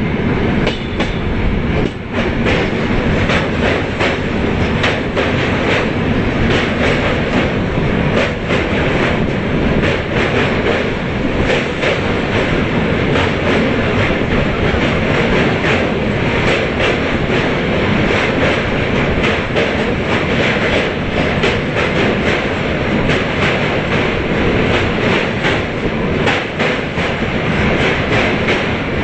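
Rajdhani Express passenger coaches running along the track, heard close up from an open coach doorway: a steady loud rumble of wheels on rail with dense, rapid clickety-clack. The train runs onto and across a steel truss bridge.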